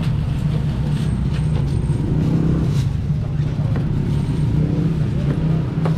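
Steady low motor drone, with a few light knocks and clicks scattered over it.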